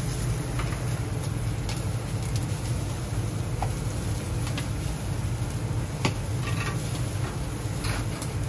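Skewered meat sizzling over the charcoal of a commercial gas grill, under a steady low rumble, with a few light clicks from the metal tongs and bamboo skewers.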